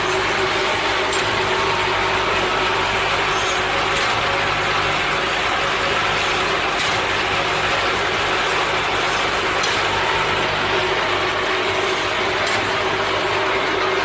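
Woodworking machine running while it processes wooden file-handle blanks: a steady, dense mechanical clatter over a constant hum, with a few sharp clicks.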